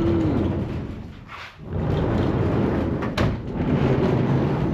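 A large metal shop door rumbling and rattling as it is moved, with a short squeal at the start, a pause, then more rumbling and a sharp clack about three seconds in.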